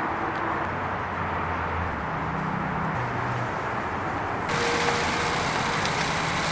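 A car running at idle under a steady rushing noise; a brighter hiss cuts in abruptly about four and a half seconds in.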